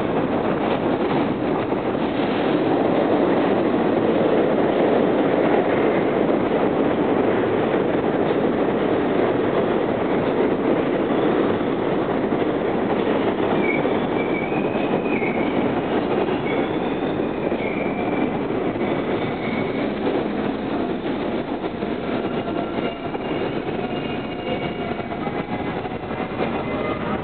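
R38 and R32 subway cars of a C train running into the station: a loud steady rumble of steel wheels on rail that eases off as the train slows. From about halfway through, high squeals come and go over the rumble.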